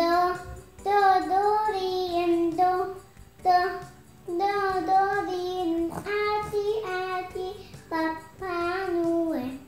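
A young girl singing alone, without accompaniment, in several short phrases separated by brief breaths.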